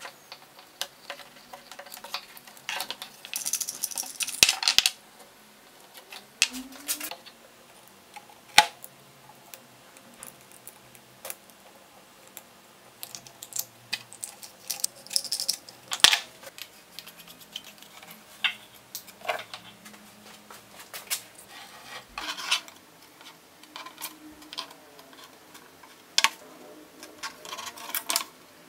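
Scattered clicks, taps and knocks of small hard parts being handled and set down on a wooden board, with a denser rattle a few seconds in. The parts are a black lamp-holder socket, handled in two pieces, and later a steel ruler.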